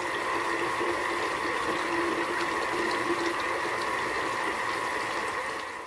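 A steady stream of water pouring, with a faint ringing tone in it, fading in and fading out.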